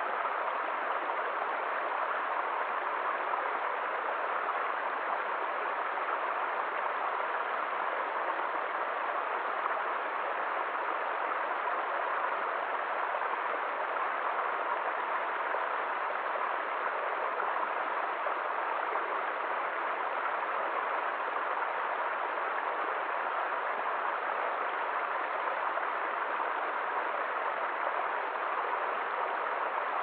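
Small woodland stream splashing down over rocks in a steady, even rush of water.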